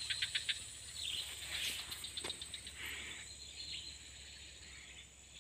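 Outdoor ambience of insects and birds, with a steady high insect buzz and a quick series of short chirps in the first half second.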